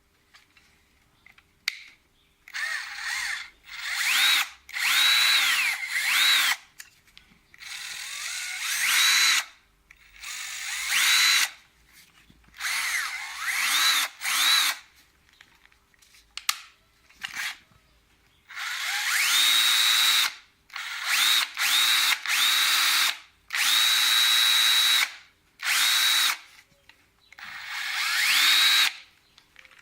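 Bosch GSR 18-2-LI Plus 18 V cordless drill/driver running free in a dozen or so short bursts. Its motor whine rises in pitch as the trigger is squeezed and drops or cuts off when it is released, and a few runs are held steady at full speed for a second or two.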